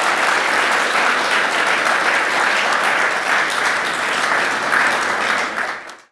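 Audience applauding steadily. It cuts off suddenly near the end.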